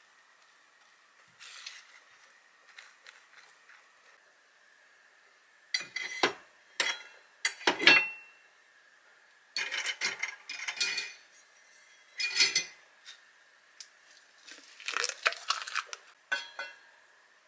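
Dishes and utensils clinking and clattering in several short bunches, starting about six seconds in, over a faint steady high-pitched tone.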